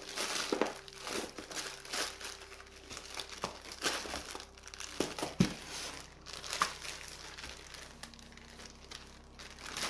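Packaging crinkling and rustling in irregular bursts as it is handled and unwrapped by hand.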